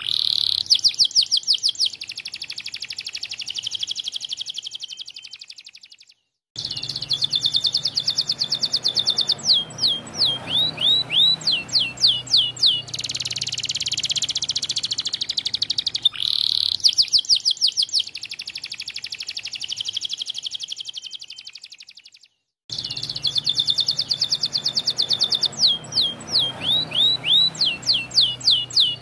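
Domestic canary singing continuously: long rolling trills and runs of quick down-slurred notes. The song is broken twice by a sudden dead gap of about half a second, and the same song passage is heard twice.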